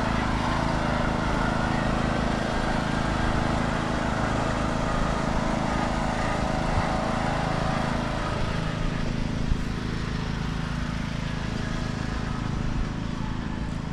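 Steady low engine rumble, with a broad hiss over it that fades about eight seconds in.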